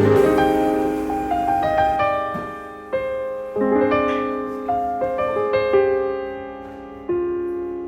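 Background music: a slow, calm solo piano melody, single notes struck every second or so and left to fade.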